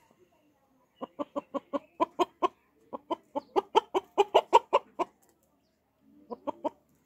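A chicken clucking in a fast run of short, sharp clucks, about five a second, for some four seconds, then a brief burst of three more near the end.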